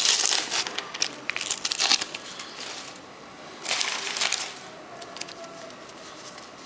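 Panini sticker packet wrapper crinkling and rustling as it is handled and torn open, in a dense burst over the first two seconds and a shorter one about four seconds in, then faint rustling.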